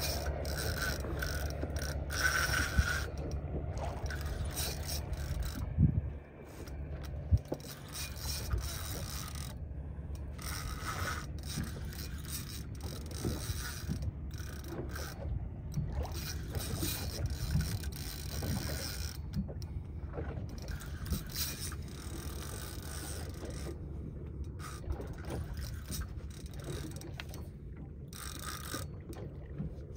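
Spinning reel being cranked against a heavily bent rod with a fish on: irregular whirring and clicking from the reel's gears, with a low steady hum underneath. A few sharp knocks stand out, the loudest about six and seven seconds in.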